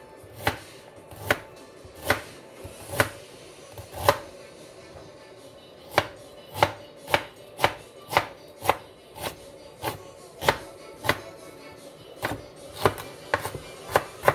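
Chef's knife chopping fresh ginger on a plastic cutting board: sharp knocks of the blade on the board, spaced out at first, then quicker at about two a second from about six seconds in.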